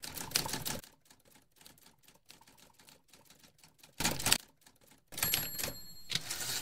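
Typewriter key-clacking sound effect. There is a rapid run of clacks in the first second, then fainter scattered clacking, and a loud burst of clatter about four seconds in. A louder, denser stretch with a thin high ringing tone starts about five seconds in.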